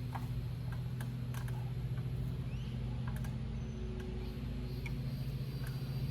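A steady low hum with scattered light clicks.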